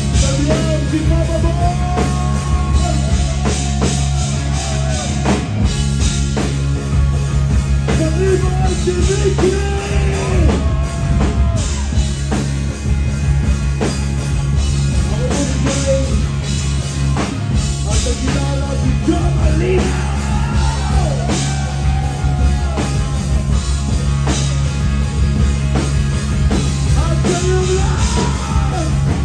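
A live rock band playing loud through a club PA: electric guitars, bass and drum kit, with a man singing lead into a microphone.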